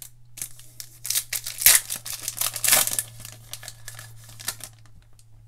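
A foil Panini Prizm basketball trading card pack being torn open and crinkled by hand: a few seconds of tearing and crackling foil, dying down to lighter crinkles near the end.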